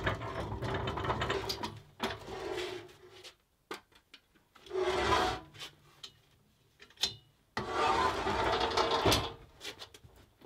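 Manual hand pallet jack being rolled and manoeuvred on a concrete floor: rumbling, rattling wheels and clicks from the handle mechanism. The noise comes in three bursts of a second or two with quiet pauses between.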